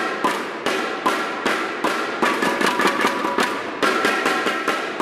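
Baseball stadium cheer music: a steady, sharp percussion beat of about two and a half hits a second under a held melody.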